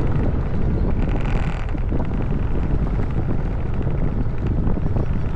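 Heavy wind buffeting the microphone, with a steady low rumble of a moving vehicle underneath.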